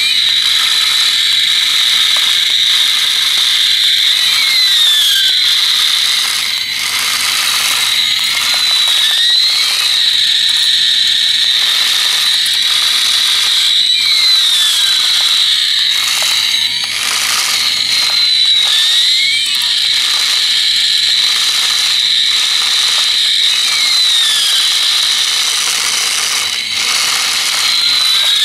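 Battery-powered wired remote-control toy airliner running with its wheels in the air: the small electric motor and plastic gears whir steadily. Over the whir a high electronic whine sweeps up and down about every five seconds.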